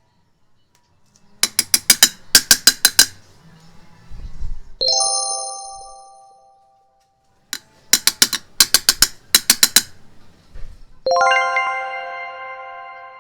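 Edited-in sound effects: a quick run of sharp clicks, then a ringing chime that fades slowly, heard twice.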